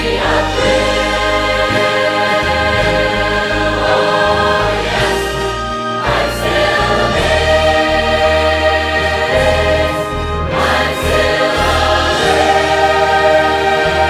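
Background gospel music with choir-like singing on long held chords that change about every four seconds, with no clear words.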